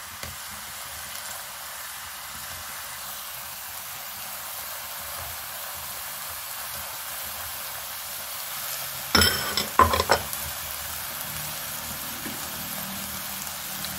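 Chicken sizzling steadily in a hot karahi as tomato wedges are added, with a couple of brief knocks about nine seconds in.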